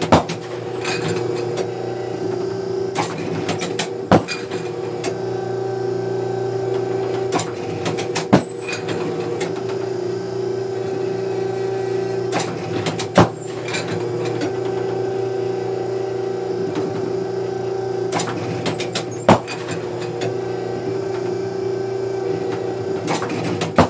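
Automatic trap machine running with a steady electric motor hum, broken about every four to five seconds by a loud, sharp crack as its arm flings a clay target. Lighter clicks and rattles come between the cracks as the machine re-cocks and loads the next clay.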